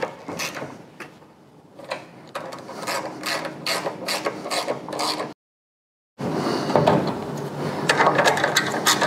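10 mm socket ratchet clicking in rapid runs as the nuts and bolt holding the air filter elbow are done up. The sound drops out to dead silence for under a second about five and a half seconds in, then the ratcheting goes on.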